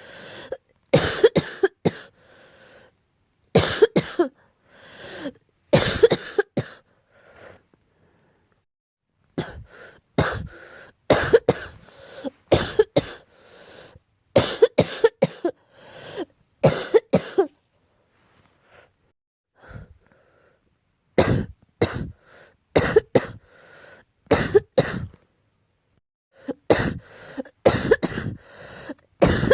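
A person's harsh, barking cough in repeated bouts of two to four coughs, with short pauses between bouts and two longer breaks. The uploader puts the cough down to an allergy to cats.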